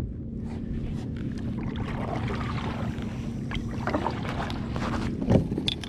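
Steady wind rush on the microphone aboard a kayak, with a few light knocks and a brief short sound near the end.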